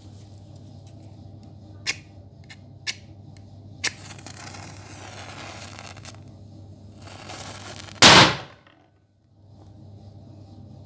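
A lighter clicking three times about a second apart, then hissing as it is held to the miniature cannon. About eight seconds in, the tiny cannon fires with one sharp bang.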